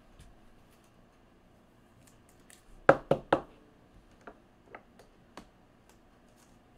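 Three sharp knocks in quick succession about three seconds in, then three lighter taps over the next couple of seconds: trading cards being handled and set up against a display shelf.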